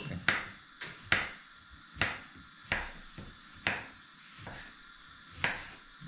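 Kitchen knife cutting a zucchini into cubes on a wooden cutting board: about nine separate sharp knocks of the blade meeting the board, irregularly spaced.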